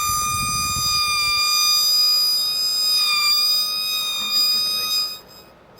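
A steady, high-pitched siren-like tone, held for about five seconds and then cutting off.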